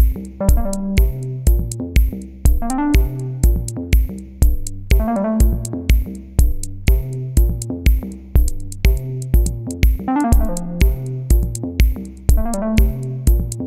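Electronic background music with a steady beat of about two hits a second under pitched chords.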